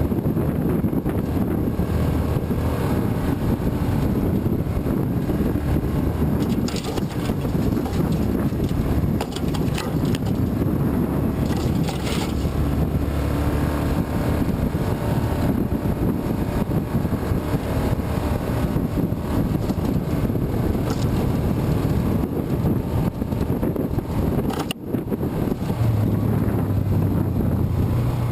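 Yamaha Rhino side-by-side running along a dirt trail, its engine rumbling steadily under wind noise on the microphone. A steadier low engine note comes in near the end.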